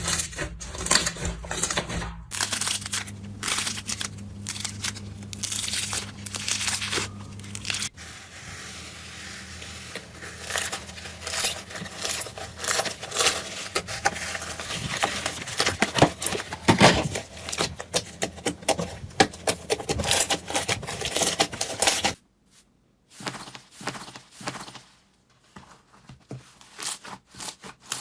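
Slime being squeezed, poked and pulled by hand, giving many small crackling, sticky clicks and pops. The sound changes abruptly a few times as one slime clip gives way to the next, thinning to sparser clicks near the end.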